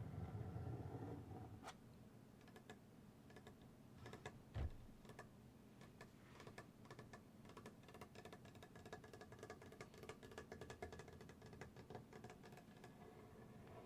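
Faint, light tapping and clicking, sparse at first and then a quick, dense patter through the second half, with a single low thump about four and a half seconds in.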